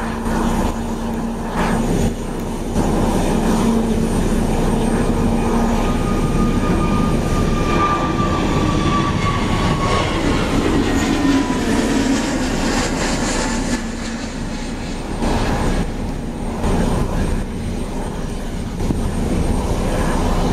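Airbus A320 jet airliner's engines running at taxi power: a steady, loud rushing hum with a faint whine that slowly falls in pitch midway.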